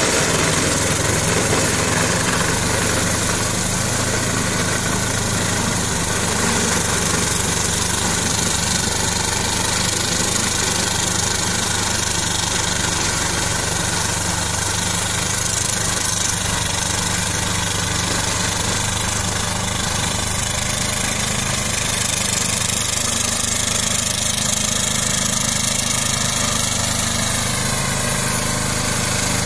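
Ferrari 95RS compact tractor's 40 hp Lombardini diesel engine running steadily under load, driving a flail mulcher that cuts through tall grass and reeds. A faint whine rises in pitch near the end.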